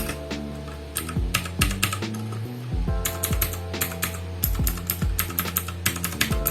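Typing on a Vortex Series VX5 mechanical keyboard with clicky blue switches: runs of sharp clicks with short pauses. Background music with a steady beat plays underneath.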